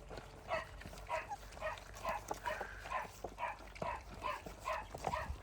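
A dog making short breathy sounds that repeat evenly about twice a second, with a few faint clicks in between.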